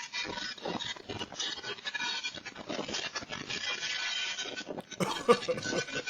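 Dense clattering and rattling of loose things battered by a violent windstorm, with a louder bang about five seconds in.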